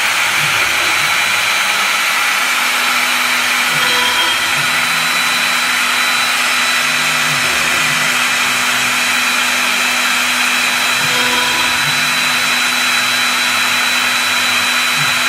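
CNC router running: a steady whirring spindle-and-cutting noise with a constant high whine over it, and a low hum that joins in about three seconds in.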